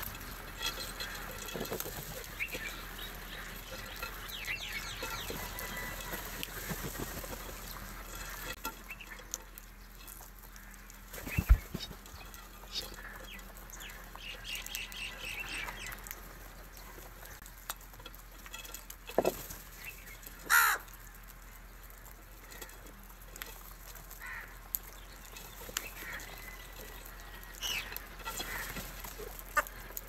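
A flock of house crows calling on and off, with some wing flapping. A loud thump about a third of the way in and another sharp, loud burst about two-thirds of the way in stand out above the calls.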